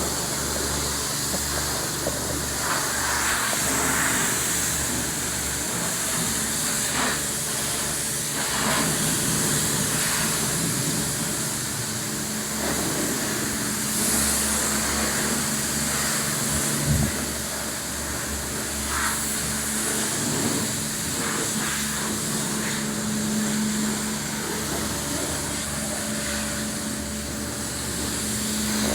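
Car wash equipment running: a steady spraying hiss over a constant mechanical hum.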